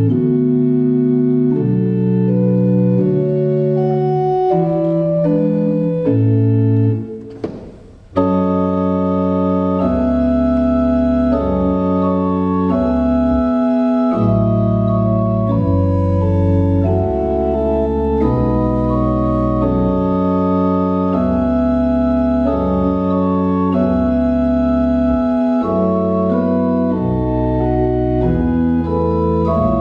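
Pipe organ playing slow held chords that change every second or so. The music thins and stops briefly about seven seconds in, then resumes fuller, with deep bass notes underneath.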